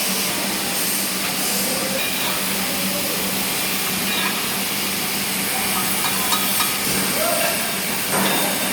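TIG welding arc hissing steadily, with a steady low hum underneath.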